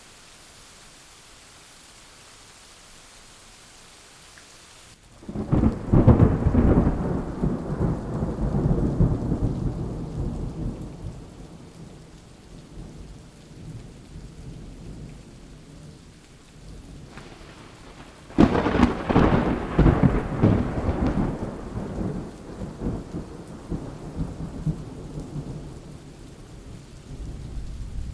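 Thunderstorm: steady rain hiss, then two loud thunderclaps about 5 and 18 seconds in. Each starts suddenly and rumbles low, dying away over several seconds, and a third rumble begins near the end.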